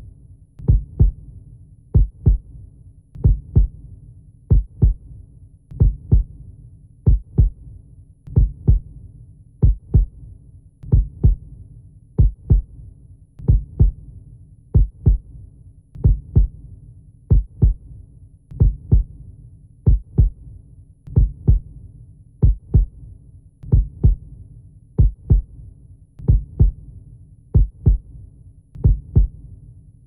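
A slow heartbeat: pairs of low lub-dub thumps repeating evenly, about four pairs every five seconds, over a steady low hum.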